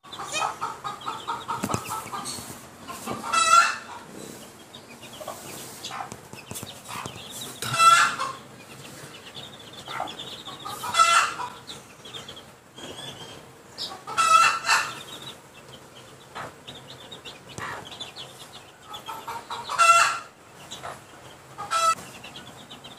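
Young chickens calling from a cage: a loud call every few seconds, six in all, over a continuous softer chatter of calls.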